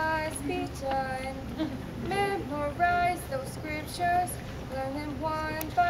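Girls' voices singing a song, moving through a string of held notes.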